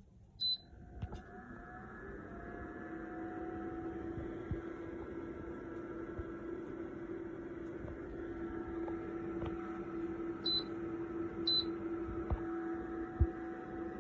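Small BREEZOME dual-semiconductor (thermoelectric) dehumidifier beeping once as it is switched on, then its fan spinning up and settling into a steady hum that grows louder over the first few seconds. Two more short beeps from its control buttons come near the end.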